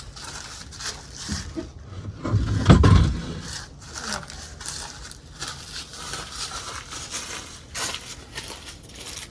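Irregular crunching and crackling of dry brush and twigs being trampled underfoot, with one heavy low thump about a third of the way in.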